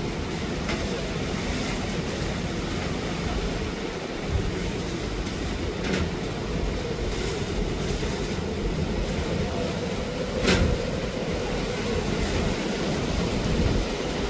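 Strong gusty storm wind buffeting the microphone in a steady rumbling rush, with a few short sharp knocks, the loudest about ten seconds in.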